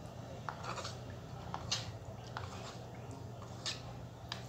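Metal teaspoon stirring a thick, wet cornstarch paste in a small bowl: faint, irregular clicks and short squishy scrapes as the spoon knocks and drags against the bowl, over a low steady hum.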